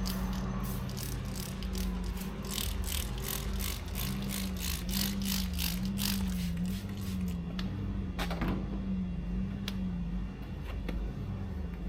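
A run of short sharp clicks, about two or three a second, thinning out to a few scattered clicks later, over a steady low hum.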